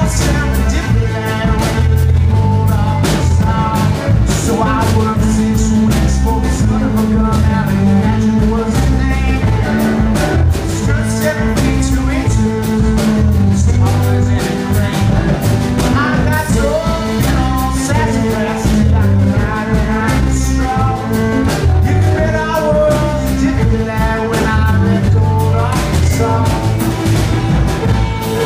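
Live folk-country band playing: fiddle, electric and acoustic guitars, upright bass and drum kit.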